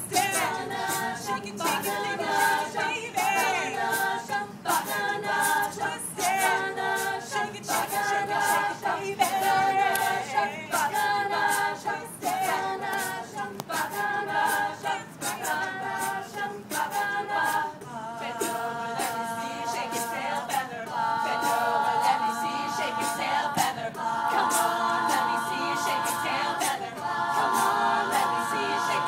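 All-female a cappella group singing in close harmony. For the first half it sings short, rhythmic chords repeated about once a second, then holds longer chords, over a steady percussive beat.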